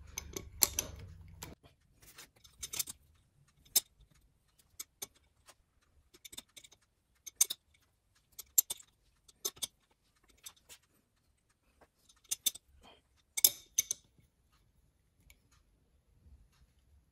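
Adjustable wrench being fitted and worked on the top cap of a RockShox Duke-C suspension fork to loosen it: irregular sharp metal clicks and clinks, a few seconds apart at most.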